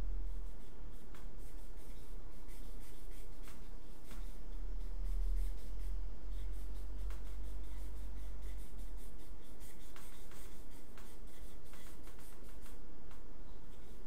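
Short, faint scratching strokes of a young child writing on a whiteboard, over a steady low hum.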